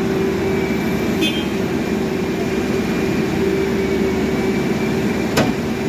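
Caterpillar backhoe loader's diesel engine running steadily at an even pitch, with one sharp click near the end.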